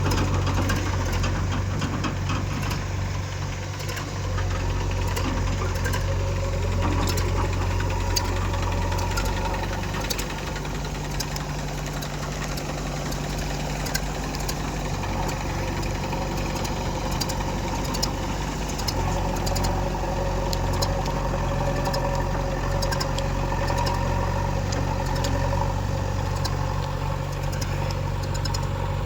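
Diesel engines of a JCB 3DX backhoe loader and a tractor running steadily, with the engine note shifting a couple of times as the machines work. Scattered short sharp clicks and knocks come over the top.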